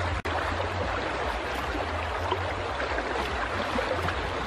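Steady rush of shallow river water moving around wading legs and a wet cast net, with a steady low rumble underneath.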